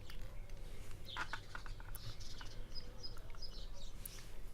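A few small, faint clicks and taps of lock parts being handled while the challenge lock is dismantled, with a bird chirping faintly several times about halfway through.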